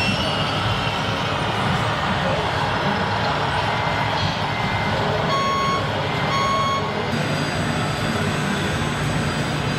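Reversing alarm of a remote-control model truck, sounding two beeps about a second apart, over a steady background hum and noise.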